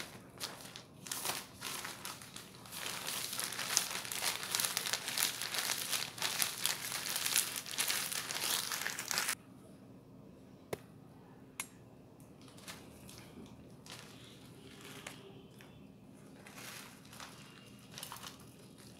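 Clear plastic bag crinkling as the biscuits inside are crushed into crumbs for a cheesecake base, a dense crackling that stops suddenly about nine seconds in. After that there are only faint rustles and a few light clicks of the bag being handled.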